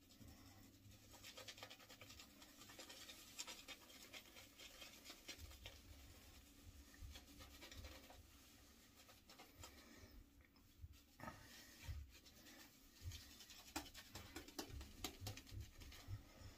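Shaving brush working lather into a beard and onto the neck: a faint, continuous scratchy swishing of bristles against beard hair and skin, easing off briefly a little past the middle.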